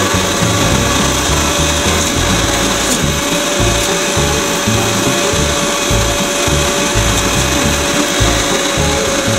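Unold 8810 electric meat grinder running steadily, its motor giving a constant whine while it grinds meat pushed down the feed tube.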